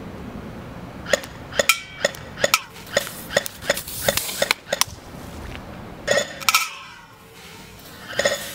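Airsoft guns firing BBs at an aluminium soda can on boulders: about a dozen sharp cracks of hits over three or four seconds, the BBs clinking off stone and metal, then two short rattling clusters of hits later on.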